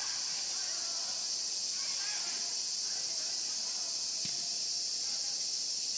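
Steady, high-pitched chirring of insects, a continuous drone with no breaks.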